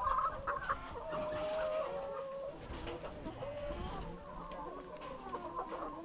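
A flock of Sasso F1 hens clucking and making soft overlapping calls while foraging.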